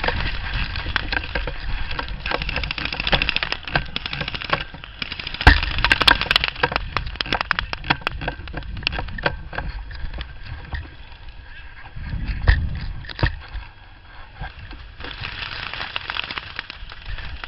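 Airsoft guns firing: scattered sharp cracks and snaps, coming thickest and fastest about five to nine seconds in, with a few more loud ones around twelve to thirteen seconds.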